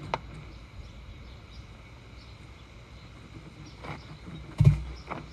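A sharp metallic click just after the start, then a loud heavy clunk about 4.7 seconds in, as the new brake rotor is handled and seated onto the wheel hub.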